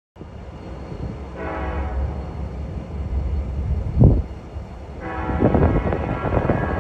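Diesel freight locomotive sounding its horn in two blasts, a short one about a second in and a longer one near the end, over the steady low rumble of its engine. A single sharp thump comes between the blasts.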